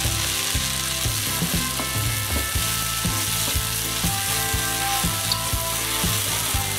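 Sliced onion, shallots and chopped tomato sizzling in hot coconut oil in a pan while a spatula stirs them, knocking against the pan a few times a second.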